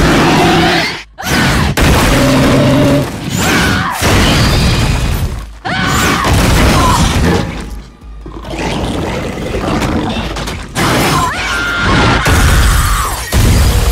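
TV monster-attack scene soundtrack: dramatic music mixed with booms and crashes, breaking off sharply a few times at the cuts.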